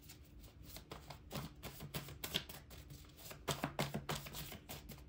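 Deck of tarot cards being shuffled by hand: a run of irregular soft clicks and taps as the cards slide and knock together, with a few sharper snaps.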